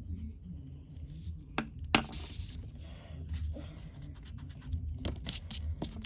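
Pen scratching and scraping across paper while drawing, with two sharp clicks about a second and a half and two seconds in, the second the loudest, and more taps near the end.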